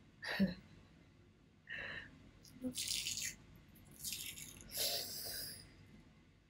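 A woman's sharp hissing breaths and short pained gasps, about five in a row, as she peels a peel-off face mask off her skin.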